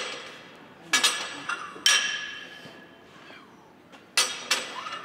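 Iron barbell and weight plates clanking: four sharp metal strikes, each ringing on briefly, the last two close together near the end.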